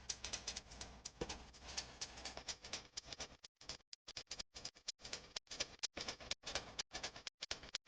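A rapid run of sharp ticks, several a second, with short silent gaps between them from about halfway through.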